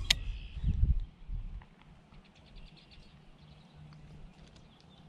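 Low buffeting rumble on the microphone with a sharp click at the start, dying away after about a second and a half. Then a faint, rapid, even ticking from a baitcasting reel being cranked as a lure is retrieved.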